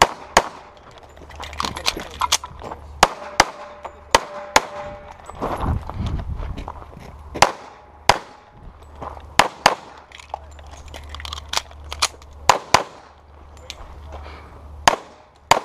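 Pistol fired repeatedly during a timed practical shooting stage: well over a dozen sharp shots, some in quick pairs, with short pauses between strings.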